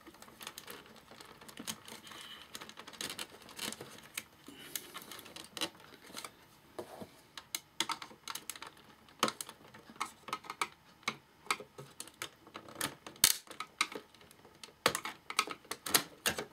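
Irregular small clicks and taps of hands and tools working a circuit board loose inside the metal chassis of a Sansui AU-X111 amplifier, a few louder knocks scattered among them.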